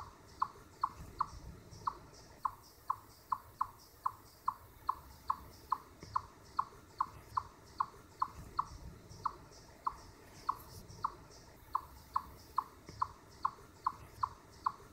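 Eastern chipmunk giving its steady chip call, a short, sharp chip repeated evenly about two and a half times a second, the series it uses as an alarm call.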